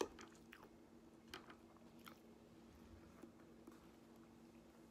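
Near silence with a few faint, sharp clicks of a fork working at a salmon fillet on a plate, over a faint steady low hum.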